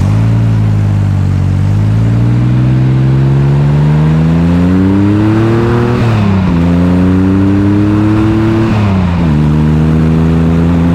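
Exhaust note of a 1965 Corvair Monza 110's air-cooled flat-six, rebuilt with a hotter camshaft and glass-pack mufflers, heard right at the tailpipe as the car accelerates. The engine pitch climbs, drops sharply about six seconds in as it shifts up, climbs again, drops at a second upshift about nine seconds in, then holds steady while cruising.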